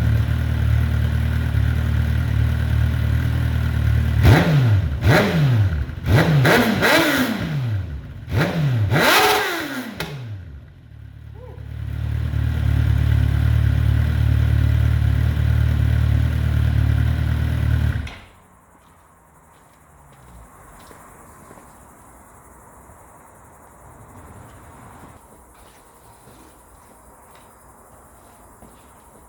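2007 Suzuki GSX-R 1000's inline-four running through a cheap Akrapovic-replica slip-on muffler with its dB killer fitted. It idles, the throttle is blipped about six times with quick rises and falls in pitch, and it settles back to idle. About eighteen seconds in the engine sound cuts off abruptly, leaving faint cricket chirping.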